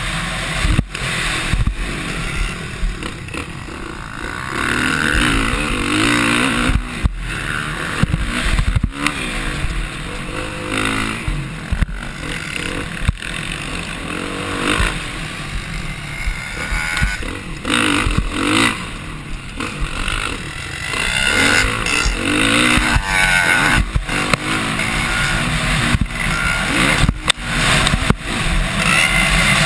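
Dirt bike engine revving up and down as it is ridden hard over a motocross track, heard from a helmet-mounted camera with wind rush on the microphone. Sudden knocks come through again and again as the bike hits the bumps.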